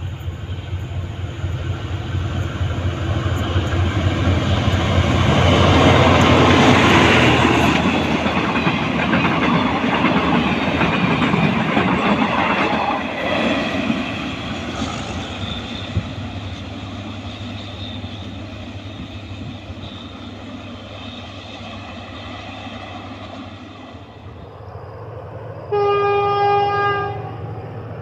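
Diesel-hauled freight train passing close by: the locomotive's engine and the wheels on the rails build to a peak several seconds in, then fade as the wagons go by, leaving a steady low engine hum. Near the end, one train horn blast about a second and a half long.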